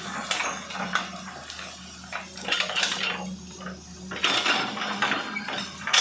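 Hitachi excavator at work: the engine hums steadily under irregular bursts of metallic clanking and scraping, loudest about two and a half seconds in, a little after four seconds, and near the end.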